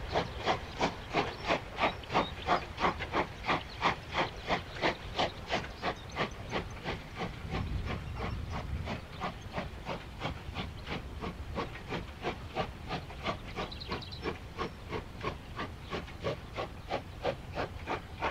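Steam locomotive working a heavy freight train, its exhaust chuffing in a steady rhythm of about three beats a second, growing fainter as the train draws away.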